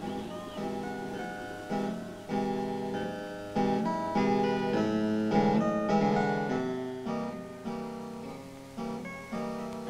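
Music on a plucked-string instrument, guitar-like: chords struck one after another, each ringing and fading before the next.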